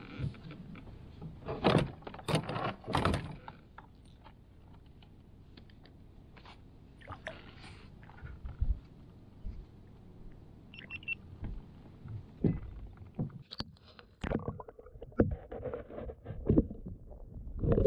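Irregular knocks, thumps and clatter of handling on a plastic Vibe Shearwater 125 pedal kayak as a northern pike is held and lowered over the side for release. A cluster of loud knocks comes a couple of seconds in, and more scattered knocks follow in the second half.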